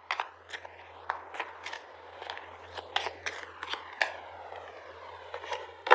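Tarot or oracle cards being handled and laid out on a table: an irregular run of crisp clicks, snaps and scrapes of card stock, a dozen or more over a few seconds.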